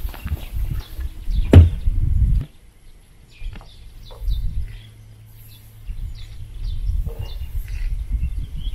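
Wind rumbling on the microphone, with one sharp knock about a second and a half in, then small birds chirping in short calls through the rest.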